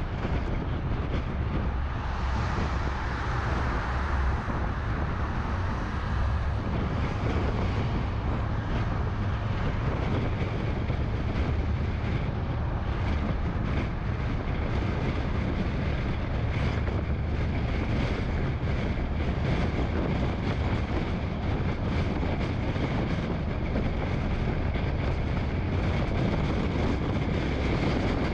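Steady road noise of a car cruising on a freeway: tyres on the pavement and rushing air over a low rumble, with no breaks.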